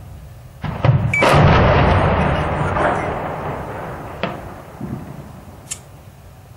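A sharp crack and then a heavy explosion boom at a tank in a built-up street, trailing off in a long rolling rumble. A smaller single crack comes a few seconds later.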